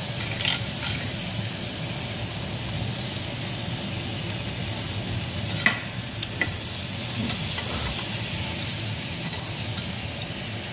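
Pork belly and other meats sizzling steadily on a tabletop Korean BBQ grill, over a steady low hum. A few sharp clicks of metal tongs and scissors handling the meat come through, the sharpest about halfway through.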